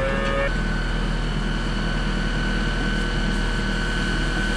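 Steady machine drone: a motor running at constant speed, a low hum with a steady high whine over it.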